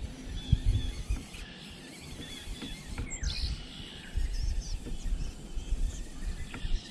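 Small birds chirping with short high calls and one falling whistle about three seconds in, over a low rumbling background.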